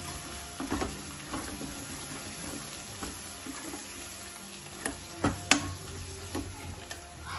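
Long steel ladle stirring green peas into tomato-onion masala frying in a steel kadai: the masala sizzles while the ladle scrapes and knocks against the pan several times, the loudest two knocks coming just past the middle.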